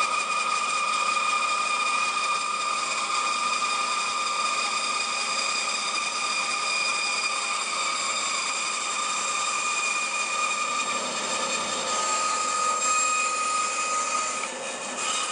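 Bandsaw running and cutting a tenon cheek down into a wooden workpiece: a steady saw whine with several high ringing tones, which stops right at the end.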